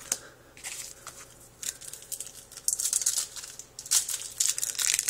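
Foil wrapper of a trading-card pack crinkling and tearing as the pack is opened. It comes as irregular crackly rustles that grow busier in the second half.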